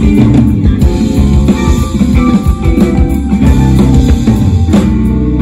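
Live jazz-fusion band playing an instrumental piece on electric guitar, electric bass, drum kit and keyboards, amplified through the stage PA.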